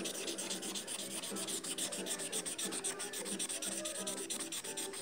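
Red felt-tip marker scribbling on lined notebook paper: many quick back-and-forth strokes of the tip rubbing the page as an area is coloured in.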